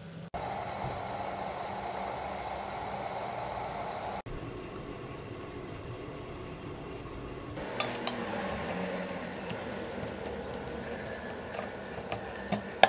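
An electric egg cooker steaming with a steady hiss and hum. After a cut, a run of light, irregular clicks and taps from kitchen utensils on a cutting board and a bowl.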